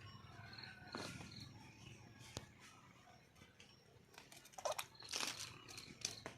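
Faint scattered clicks and rustles, louder about five seconds in, with a few brief high chirps; no junglefowl call.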